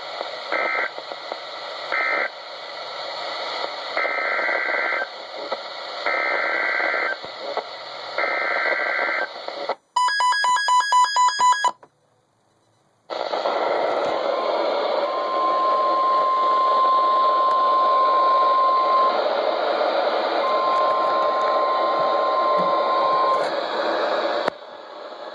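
NOAA Weather Radio emergency alert tones through heavy radio static. First come short warbling digital data bursts, then three SAME header bursts about a second long and a second apart, then a loud two-second burst of tones and a brief dropout. After that a steady high warning alarm tone sounds twice, faint under the static.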